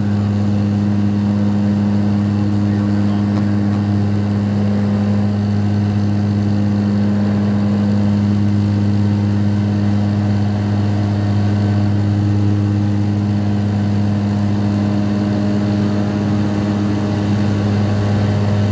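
Cabin noise of a Bombardier Dash 8 Q400 climbing after takeoff, heard from a seat beside the wing: the Pratt & Whitney PW150A turboprop and its six-blade propeller give a loud, steady deep drone with a low hum over a rush of air. The sound holds constant, with no change in engine power.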